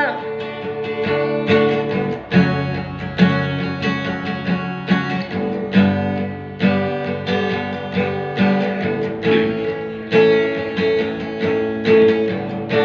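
Acoustic guitar strummed alone in a slow, steady rhythm, its chords ringing on between strokes: an instrumental break between sung lines.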